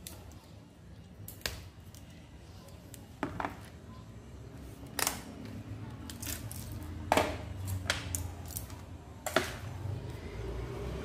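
Hand work on magnet wire and tools: about eight sharp clicks and taps scattered unevenly over several seconds, over a low steady hum.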